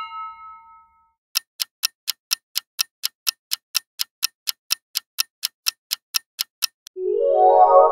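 Clock-ticking countdown sound effect: evenly spaced ticks, about three a second, for about five seconds. A ringing chime fades out in the first second, and a music jingle starts near the end.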